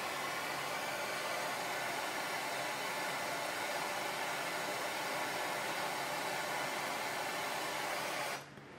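Handheld gas torch flame hissing steadily while it heats a steel knife tang to silver-solder a nut onto it. The hiss cuts off suddenly near the end as the torch is shut off.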